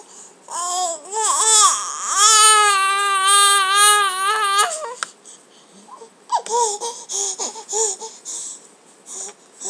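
Young baby vocalizing: a few short squeals, then one long wavering wail-like cry of about two and a half seconds, then several shorter coos.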